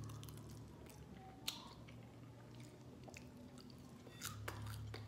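Faint close-up chewing of a fried chicken and glazed donut sandwich, with scattered wet mouth clicks and a few crunches from the crunchy breading.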